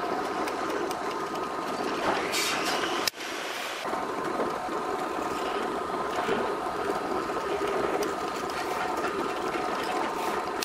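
Electric drill mounted in a drill stand, running steadily as it bores small holes into the end grain of a wooden cylinder. Its pitch rises briefly about two seconds in, and the sound drops out sharply for a moment about three seconds in.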